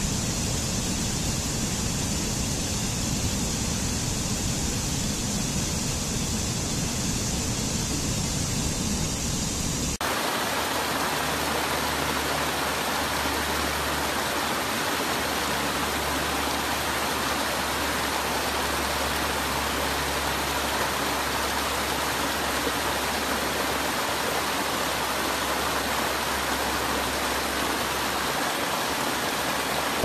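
Steady rush of stream water cascading over rocks. About ten seconds in, the sound changes abruptly to a fuller, more even rush.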